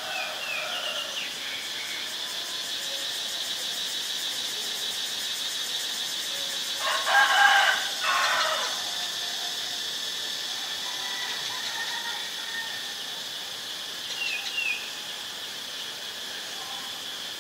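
A rooster crowing once, about seven seconds in, the loudest sound, over a steady high insect drone. A few short downward chirps from a small bird come near the start and again about fourteen seconds in.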